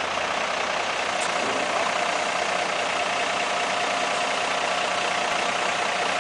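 Mercedes-Benz Unimog's diesel engine running steadily at low revs, with a thin steady whine that grows clearer about halfway through.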